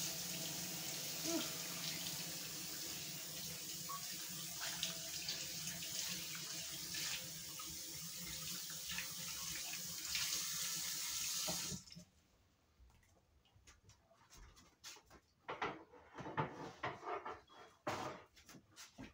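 Tap water running into a sink while a skin mask is rinsed off by hand. The water shuts off suddenly about twelve seconds in, followed by a few soft, scattered handling sounds.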